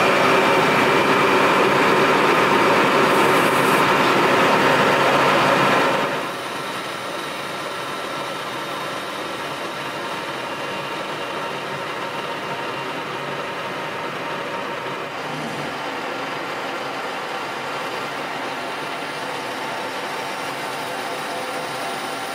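Colchester Master 2500 lathe running under a facing cut into a metal disc. It gives a steady machine whine with several fixed tones, and about six seconds in it drops to a quieter steady run.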